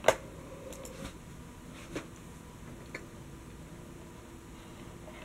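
Faint steady hiss with a sharp click just after the start and another near the end, and a few fainter ticks about a second apart in between.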